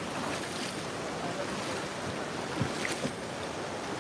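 Steady rushing of flowing floodwater in a river's shallows, with a few faint taps in the second half.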